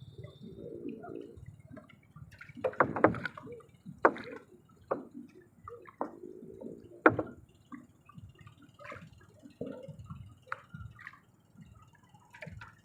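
Water dripping, with irregular sharp knocks and clicks, loudest about three seconds in and again about seven seconds in.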